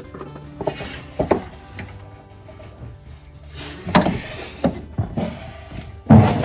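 Background music with a series of sharp metal knocks and clanks from hand tools working a puller on a power steering pump pulley, the loudest knock about six seconds in.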